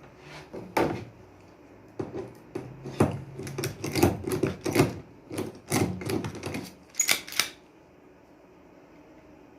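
Irregular clicks and knocks of hard parts being handled and fitted on a sliding shower door, in a quick uneven run that stops about two seconds before the end.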